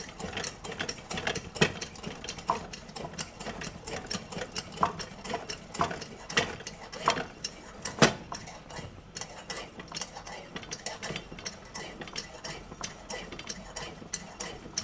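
Butterfly 828 kerosene pressure lantern burning with a steady rush, broken by rapid, irregular clicks and pops, several a second, the loudest about a second and a half in and again near the middle.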